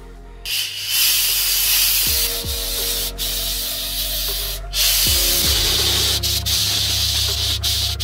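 Handheld steam cleaner blowing steam: a loud, steady hiss that starts about half a second in, with a few brief breaks, over background music with a low beat.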